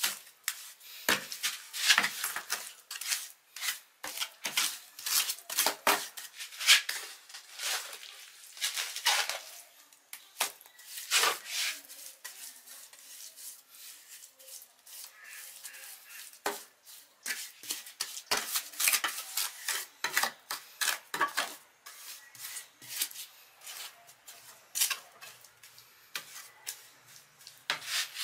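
Irregular light metallic clicks, scrapes and rubbing from hand work on thin sheet metal, thinner in the middle and busier before and after.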